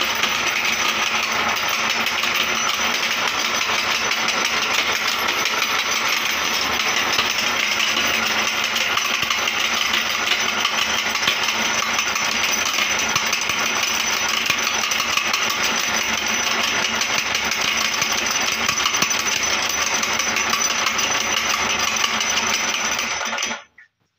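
Glass bangles being crushed in a metal meat grinder: a steady crunching and rattling of breaking glass that cuts off abruptly near the end.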